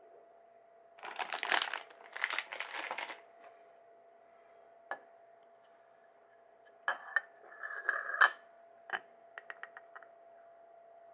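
Crinkling and tearing of packaging for about two seconds, starting about a second in, then scattered sharp clicks and taps of a plastic lid or container being handled, ending in a quick run of small ticks.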